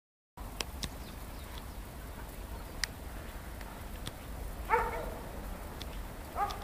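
A dog barks twice, once in the middle and once, shorter, near the end, over a low steady background rumble with a few faint clicks.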